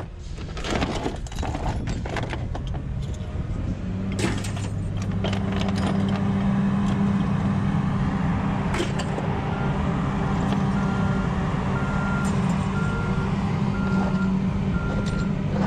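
Small metal scrap parts clink and knock as they are handled on a pickup's bed. About four seconds in, a vehicle engine starts a steady low hum, and a little past halfway its reversing beeper begins, one short high beep about every second.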